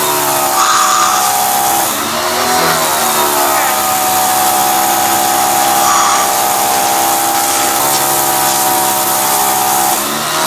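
PAXCESS 3000 PSI electric pressure washer running while spraying: a steady motor-and-pump whine over the hiss of the water jet, the pitch dipping and recovering a couple of times.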